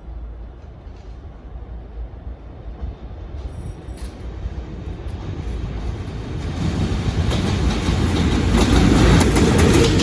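VL10u electric locomotive and its train approaching with a steady low rumble that grows steadily louder over the second half. Rapid wheel clatter over the rails comes in near the end.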